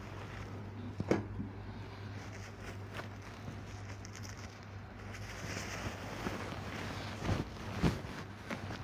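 Embroidered cloth rumalas rustling as they are lifted, unfolded and swung out over the Guru Granth Sahib, with a couple of louder bumps near the end. A steady low electrical hum runs underneath.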